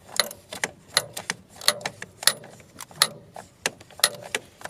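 Sharp metallic clicks and clinks, irregular and several a second, of a hand ratchet and tools being worked on metal parts in an engine bay.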